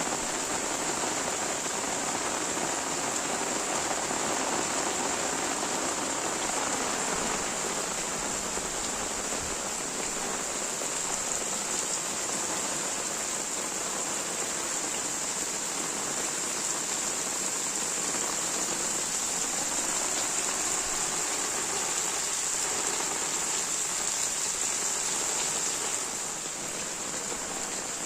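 Steady heavy rain falling, an even hiss of drops on surfaces that eases slightly near the end.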